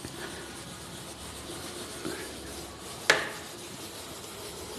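A whiteboard duster wiping across a whiteboard, a steady rubbing scrape. A single sharp knock about three seconds in is the loudest sound.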